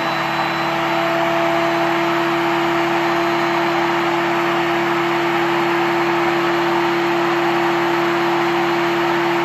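Electric motor of a workshop power tool running at a constant speed, with a steady hum and an even whirring hiss.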